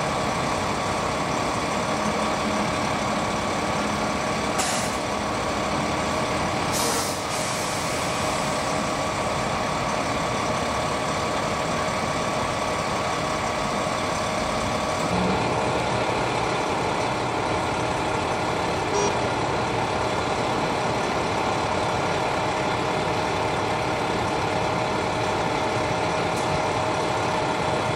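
Parked fire engines' diesel engines idling steadily, with a constant whine. Two short hisses come about five and seven seconds in.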